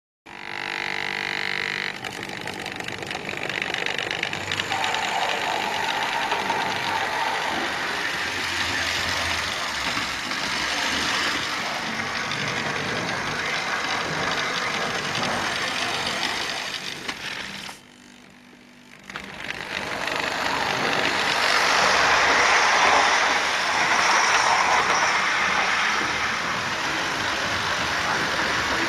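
Electric model trains running on the layout track: a steady whirring rumble of motors and wheels on rail. It drops out briefly about two-thirds of the way through and comes back louder.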